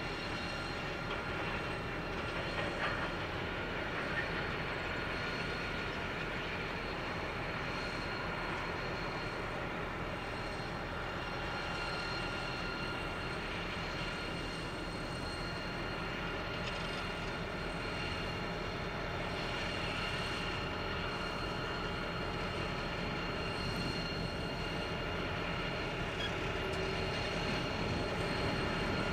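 Diesel-electric freight locomotives (BL, X and G class, BL32 leading) hauling a loaded grain train at walking pace, engines running with a low rumble under a steady high whine, growing slightly louder near the end as the train draws closer.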